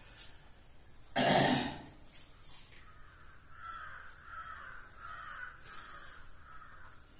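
A single loud, harsh cough about a second in, then about six faint harsh calls from a bird in an even run.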